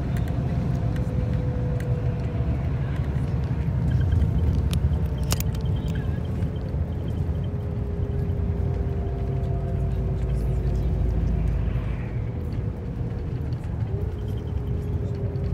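Steady low rumble of a vehicle travelling, heard from inside the cabin, with a faint whine that slowly drops in pitch and jumps back up near the end.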